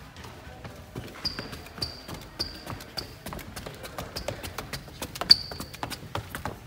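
Hurried footsteps of sneakers on a hard polished floor, rubber soles giving short high squeaks about twice a second among the footfalls, then stepping onto stairs near the end.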